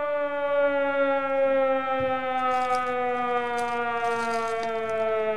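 Air-raid siren sound effect wailing, its pitch slowly falling; it is played to mark a big card pull.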